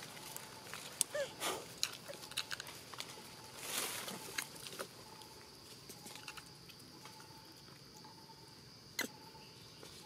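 Steady high drone of insects, with scattered small clicks and a brief rustle about four seconds in as a baby monkey grips and bites into a held mango.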